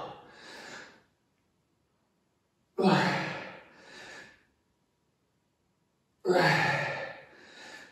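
Heavy, voiced sighing breaths of a person straining through a hard set of a dumbbell leg exercise. There are three loud exhalations about three and a half seconds apart, each fading and followed by a softer second breath.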